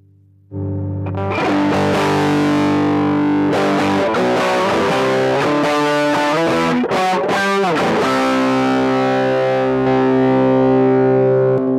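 Electric guitar with distortion, played through a chain of effects pedals. A held chord starts about half a second in and busier playing follows. A quick downward pitch slide comes about two-thirds of the way through, and then a held chord rings on.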